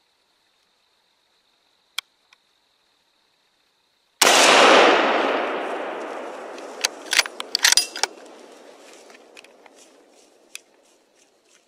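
A single rifle shot about four seconds in, sudden and loud, its report rolling away and fading over several seconds. Sharp clicks and rattles follow, and two small clicks come just before the shot.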